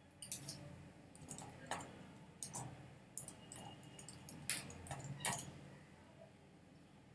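Computer keyboard keys clicking faintly and irregularly as text is typed, about a dozen keystrokes over a low steady hum.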